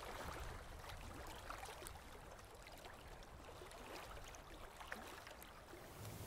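Faint trickling, lapping water with many small drips and ticks.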